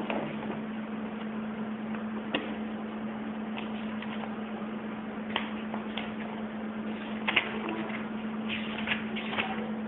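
Room tone: a steady low hum with background hiss, broken by a few short clicks and knocks that come more often in the last few seconds.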